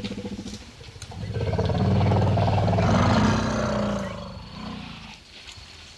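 A long, low, rough call from an African elephant. It swells about a second in and dies away after about four seconds, with a weaker low sound after it.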